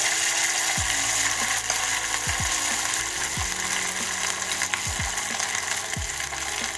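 Ground-pork meatballs sizzling and crackling as they deep-fry in hot oil in a saucepan.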